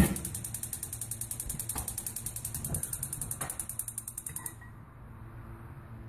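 Gas stove's spark igniter ticking rapidly after a sharp click of the knob, then stopping abruptly about four and a half seconds in.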